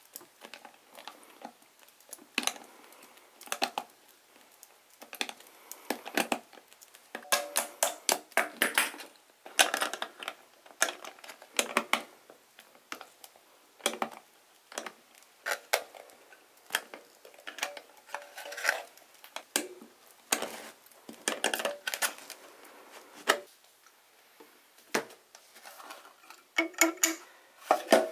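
Steel kalimba tines clicking, scraping and knocking as pliers push them into place on a 3D-printed kalimba body. The clicks come irregularly, in clusters, and some ring briefly with a pitch, including a short ring near the end.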